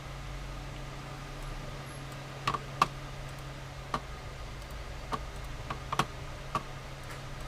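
Steady low hum with about seven short, sharp clicks or taps scattered through the middle, two of them close together near the three-second mark.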